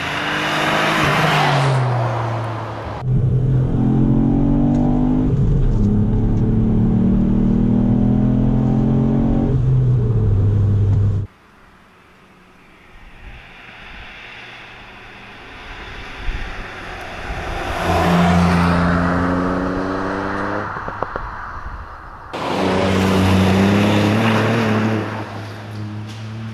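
Ford Fiesta ST Mk8's 1.5-litre turbocharged three-cylinder engine heard from outside as the car accelerates past. The engine note climbs and drops in steps with each gear change, in several separate passes with sudden cuts between them.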